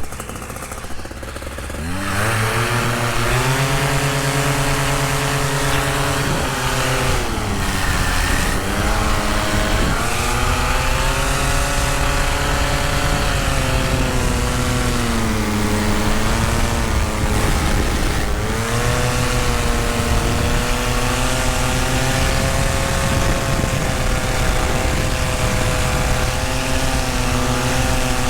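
Tandem paramotor's engine and propeller throttled up hard about two seconds in, then running at high power, its pitch dipping and rising several times as the throttle is worked.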